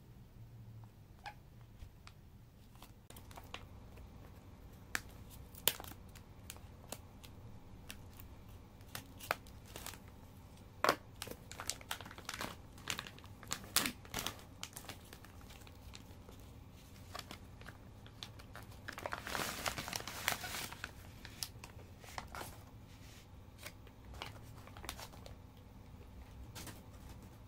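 Clear plastic wrap crinkling and tearing as it is peeled off a plastic food tray. It comes as scattered sharp crackles, with a denser stretch of rustling about two-thirds of the way through.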